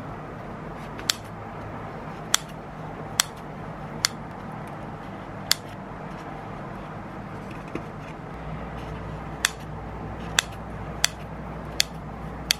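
Kitchen scissors snipping slits into soft bread rolls: about ten sharp clicks of the blades closing, at irregular intervals.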